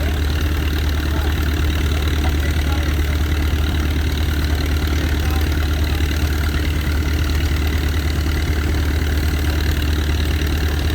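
Frick steam traction engine running steadily while driving a sawmill by belt: a continuous, even mechanical drone.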